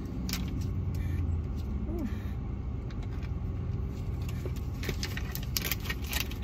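Steady low rumble inside a car cabin, with a few faint clicks and rattles in the second half.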